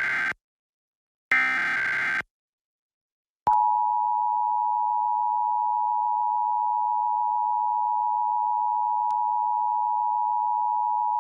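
Emergency Alert System required monthly test: the last two SAME digital header data bursts, each a harsh buzzing screech about a second long, then after a short gap the EAS two-tone attention signal, a steady two-pitch tone that starts about three and a half seconds in and holds.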